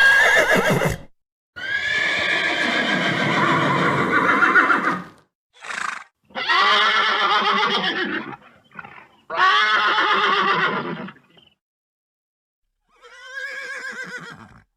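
A horse neighing over and over: about five whinnies with short gaps, one of them long and drawn out, the last one near the end quieter, separated by dead silence.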